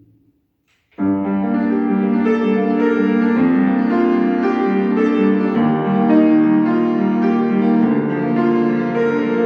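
A piano starts playing about a second in, after a brief near silence, and runs on in a steady flow of notes.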